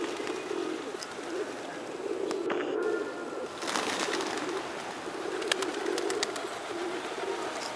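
A flock of feral pigeons cooing in repeated low phrases, one after another, with a brief rush of noise about halfway through.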